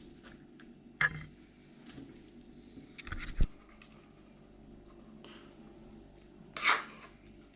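A few scattered light knocks and a short scrape near the end, from dishes or food being handled, with quiet room tone between.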